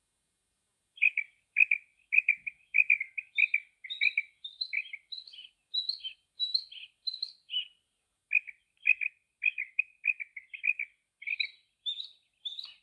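Female common quail calling: a rapid string of short, clipped notes that steps up to higher-pitched notes. It starts about a second in, breaks off briefly past the middle, then begins again the same way.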